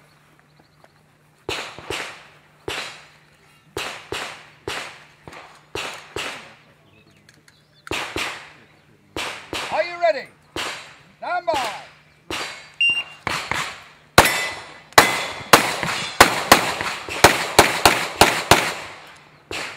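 Scattered, quieter pistol shots from other firing points, then a short high electronic shot-timer beep, and a second or so later a fast string of a dozen or more loud pistol shots, two to three a second, each ringing out briefly.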